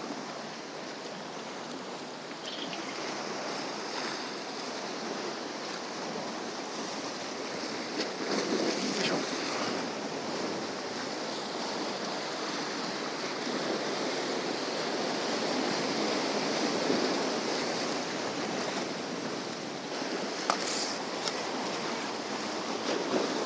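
Sea surf washing and breaking against rocks just below: a continuous wash of waves, swelling about a third of the way in and again past the middle.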